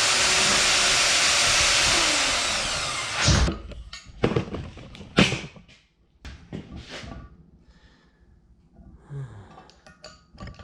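A power tool running steadily while cutting and smoothing a steel washer, then winding down about two to three seconds in. After it stops, a sharp knock and several short metal clinks and knocks follow as the parts are handled.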